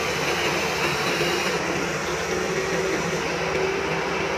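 Remote-control toy excavator's electric motors whirring steadily as it moves its arm.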